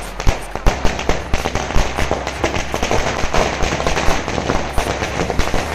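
A long string of firecrackers going off in rapid succession: a dense, continuous crackle of bangs with sharper, louder cracks scattered through it.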